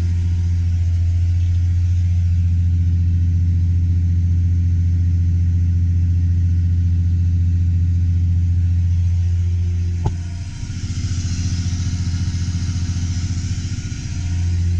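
Tractor engine running steadily under load, a loud low drone. There is a single click about ten seconds in, after which the drone dips slightly and a higher hiss rises for a few seconds.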